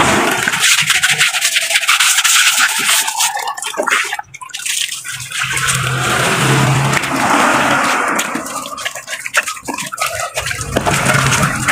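Water splashing and pouring as a pink plastic dipper scoops and rinses water in a tire-testing dunk tank that is being emptied and cleaned, with a brief lull about four seconds in.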